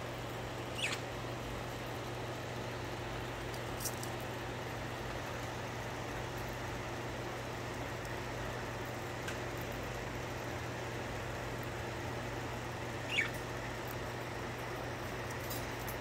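Budgerigars giving two short, high chirps that fall in pitch, one about a second in and another some twelve seconds later, over a steady low hum.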